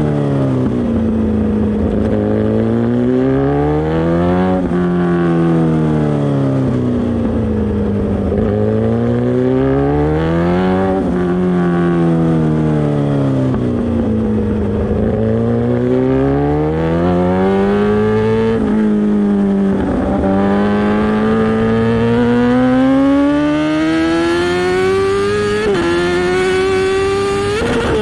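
Kawasaki ZX-10R's inline-four engine through an SC Project aftermarket exhaust, under way: the engine note rises and falls several times as the rider opens and rolls off the throttle, then climbs steadily in one long pull through the last third.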